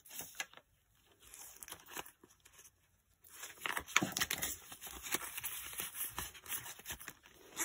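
Clear plastic binder wallet and polymer banknotes rustling and crinkling as cash is pushed into the pocket. The handling is light at first, then becomes a busy run of crackles and small clicks from about three seconds in.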